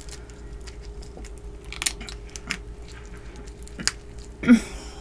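Small crackles and clicks of a boiled freshwater prawn's shell being peeled apart by hand, with chewing, over a faint steady hum. A short, louder low sound comes about four and a half seconds in.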